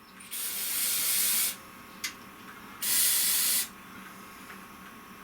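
Aerosol can of rubberized rocker-guard coating spraying in two hissing bursts of about a second each, with a brief puff between them, sealing rivets.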